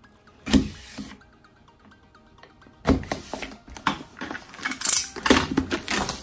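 A utility knife slitting the plastic shrink wrap on a tablet box in one quick stroke about half a second in. From about three seconds in the loosened film is pulled and peeled off the box, crackling and crinkling unevenly.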